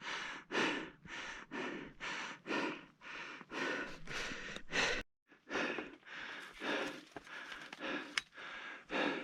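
A climber's heavy breathing from exertion at altitude, quick in-and-out breaths about two a second, breaking off for a moment about five seconds in.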